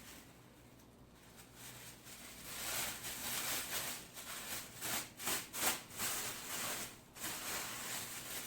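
Rustling and rubbing of packaging as masks are packed into parcels, starting about two seconds in, with a quick run of short scratchy strokes in the middle.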